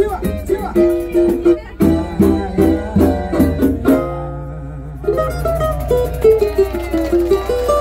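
Samba music without singing: plucked strings, likely cavaquinho and guitar, strumming chords on the beat, a held chord about four seconds in, then a descending melody line.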